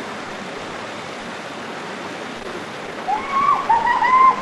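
Waterfall rushing steadily. About three seconds in, a high voice calls out over it.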